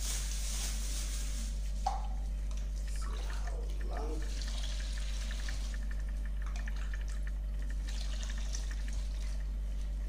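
Water poured from a plastic cup into a plastic bag and scooped in a plastic bowl: splashing and trickling with light crinkling of the bag. A steady low hum runs underneath.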